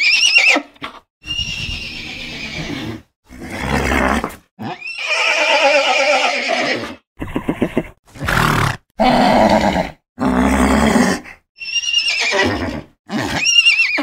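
Horses neighing and whinnying: a run of about ten separate recordings, each broken off by a short silence, most with a wavering, shaking pitch.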